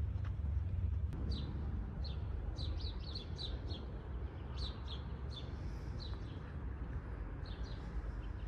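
Small birds chirping: quick runs of short, falling high notes, thickest from about a second in to three and a half seconds and again near the end, over a steady low rumble.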